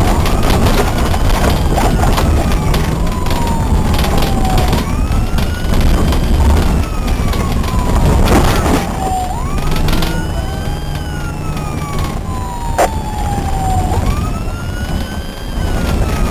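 Police car siren in wail mode, its pitch rising quickly then falling slowly about every four and a half seconds, heard from inside the patrol car over loud engine and road rumble. There is one sharp click about thirteen seconds in.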